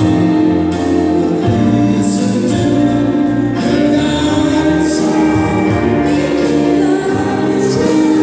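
Live band playing a song: singing over keyboard, guitars and drums, with cymbal strokes about every second or so.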